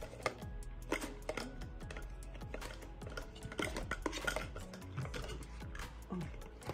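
A steel spoon scraping inside a plastic tub of thick Greek yogurt and tapping against a plastic measuring cup: irregular clicks and scrapes.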